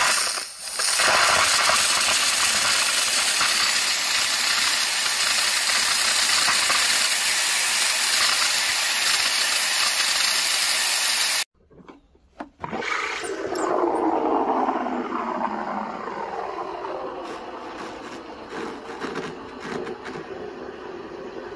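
Saeco Nina Plus espresso machine's steam wand hissing loudly. After a cut, the wand steams milk in a stainless steel pitcher, with a whine that falls in pitch and fades.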